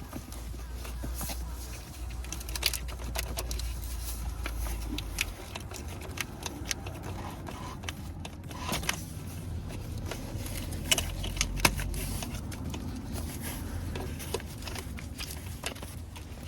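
Irregular metallic clicks and clinks of hand tools being handled, over a low rumble.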